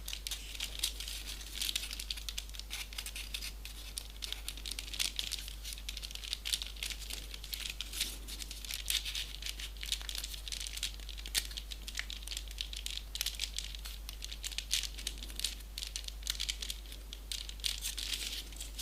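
Folded paper origami pieces rustling and crinkling with many small sharp ticks as they are handled and pushed into a modular 3D origami model.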